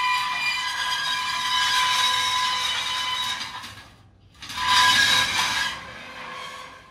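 Trailer winch running with a steady high-pitched whine as a truck is let off the trailer. It stops briefly about four seconds in, runs again for about a second, then falls to a quieter hum.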